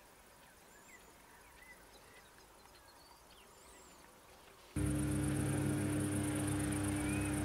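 Faint scattered bird chirps, then, about five seconds in, a sudden switch to a much louder steady drone holding several fixed pitches, with a high, rapidly pulsing buzz above it.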